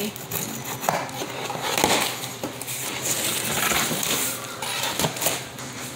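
Cardboard box being cut and pulled open by hand, the cardboard crackling and scraping, with a few sharp knocks.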